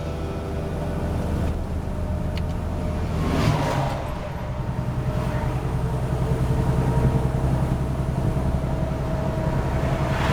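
Road vehicle engine running steadily while driving; about three and a half seconds in there is a brief whoosh and the engine note steps up in pitch.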